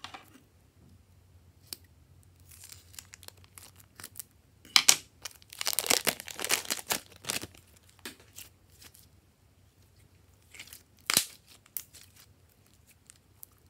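A thin plastic piping bag of glossy slime crinkling and tearing open. The slime is then squeezed out and handled in short, sticky crackles. The sound is loudest from about five to seven seconds in, with one more sharp crinkle near eleven seconds.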